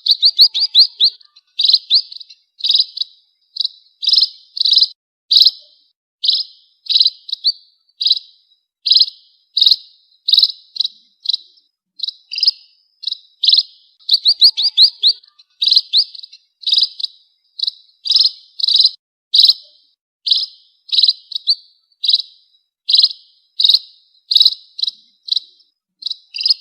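Small finch known in Indonesia as burung pipit chirping: short clusters of quick, high chirps repeated about once or twice a second without a break.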